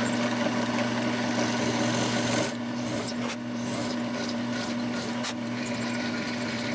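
Drilling machine's spindle running with a steady hum while its collet-held stubby brad point bit cuts sideways through wood, a continuous rasp of wood being milled out into a 5 mm mortise slot. The cutting gets slightly quieter about two and a half seconds in.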